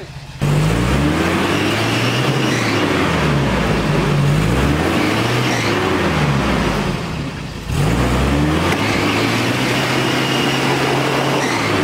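Toyota Land Cruiser Bundera engine revving up and down again and again under load as it climbs a steep, rutted dirt track. It eases off briefly about seven seconds in, then revs hard again.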